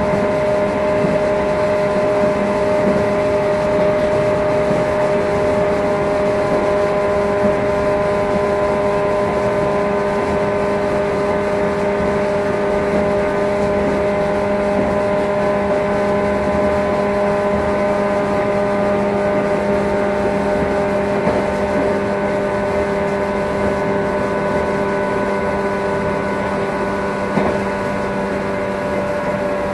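Running sound inside the cabin of a JR 115 series electric motor car (KuMoHa 115-302) at steady speed. The motors and gears give a steady hum of several fixed pitches over the wheel-and-rail rumble, with one small knock near the end.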